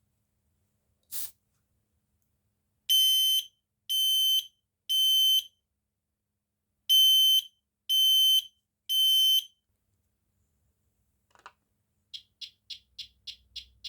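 DSC FSA-410BST smoke detector's alarm sounding the temporal-3 pattern: two groups of three half-second beeps with a pause between them, after a brief hiss about a second in. Near the end it switches to a fast run of short beeps, about four a second. The unit is damaged, and its owner notes it takes a while to go fully into temporal-3.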